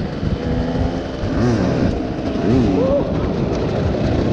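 Enduro dirt bike engine running at a steady idle, with a couple of brief rises and falls in pitch in the middle.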